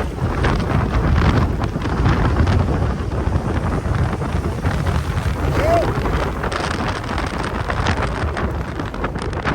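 Strong wind buffeting the microphone: a steady, gusting low rumble.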